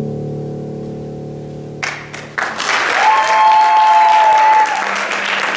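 A grand piano's final chord rings on and fades. Audience applause breaks out about two seconds in, and a held high cheer rises above the clapping for about a second and a half.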